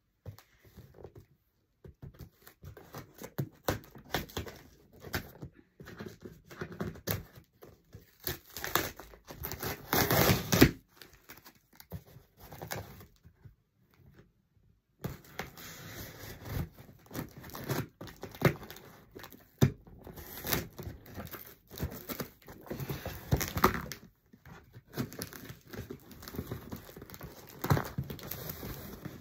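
Cardboard parcel being opened by hand: irregular rustling, crinkling and tearing of the box's tape and packing, with one louder, longer rip about ten seconds in and a short pause midway.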